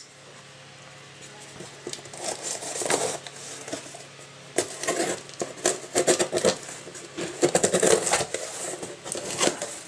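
A knife slicing through the packing tape on a cardboard box: irregular scraping and crackling strokes of blade, tape and cardboard, starting about two seconds in and getting busier later.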